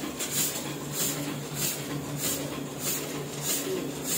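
Sheet-fed offset printing press running, with a steady low hum and a short hiss that repeats about one and a half times a second as the machine cycles.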